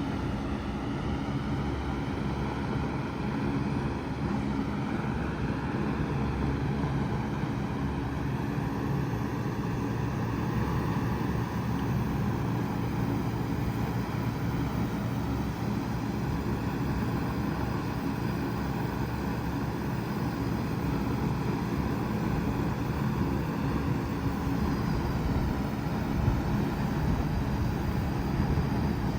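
Bard 5-ton wall-mounted heat pump running in cool mode: a steady compressor hum under the noise of its fan. Fainter higher tones waver in pitch over the first several seconds before the sound settles.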